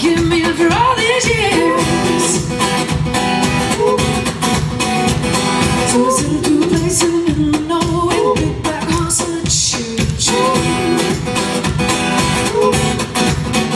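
Live acoustic rock song: a woman singing over a strummed acoustic guitar with a steady rhythm.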